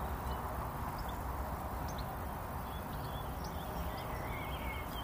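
Steady outdoor background noise with a low rumble, and faint, short bird chirps scattered throughout.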